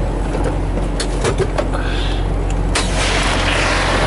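Semi truck's diesel engine idling steadily, heard from inside the cab, with a few sharp clicks in the middle and a rising hiss of noise from about three seconds in.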